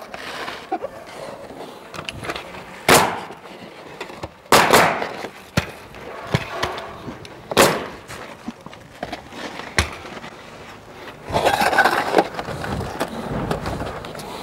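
Pneumatic roofing nailer firing single shots, each a sharp report, about five in all spaced one to three seconds apart. Between the shots there is a rustling of the flashing and wall wrap being pressed into place.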